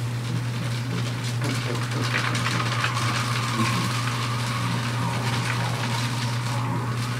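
Sharpened loop tool shaving clay off an upturned bowl spinning on a potter's wheel: a continuous scraping hiss that grows stronger about a second and a half in, over the wheel's steady low hum.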